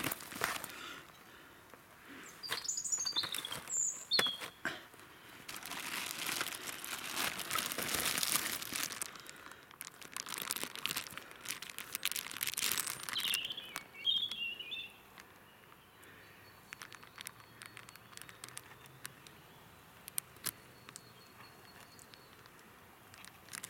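A clear plastic bag crinkling and rustling in bursts as it is handled, most densely through the first half and in sparse crackles later. A small bird chirps a few times, about three seconds in and again around fourteen seconds.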